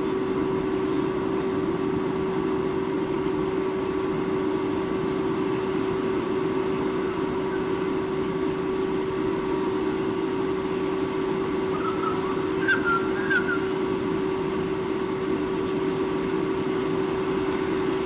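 Steady outdoor background noise with a constant low hum running under it. A few short bird calls come about two-thirds of the way through.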